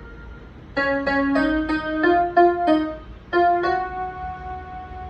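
Casio electronic keyboard played with a piano sound: a short melody, a quick run of about seven notes starting just under a second in, a brief pause, then two more notes, the last one held and fading.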